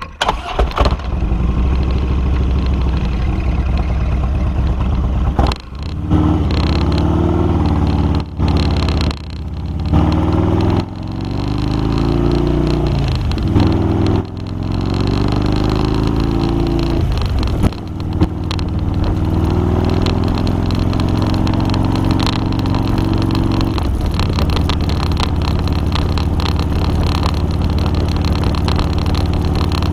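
Harley-Davidson motorcycle engine pulling away and accelerating through the gears, its pitch climbing and dropping back at each of several shifts, then settling into a steady cruise for the second half.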